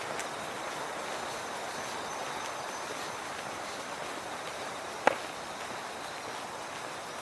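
Autumn night ambience: faint, high insect chirring over a steady rushing background noise. A single sharp knock comes about five seconds in.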